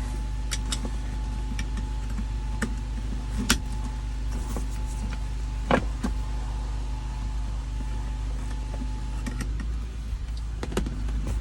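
Scattered metallic clicks and scrapes of long-nose pliers bending a small retainer to free a handbrake cable from its lever assembly, the two loudest about three and a half and six seconds in, over a steady low hum.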